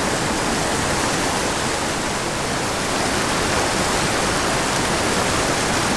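Small mountain creek pouring over rocks into a pool close by: a steady, even rush of water.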